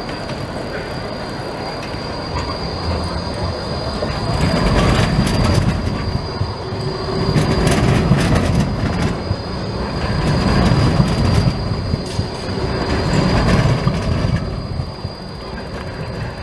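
Long articulated low-floor tram passing close on a curve, its wheels squealing against the rails in a steady high whine. Under the squeal the rumble swells about four times as the bogies roll by, with clicks and clacks over the track.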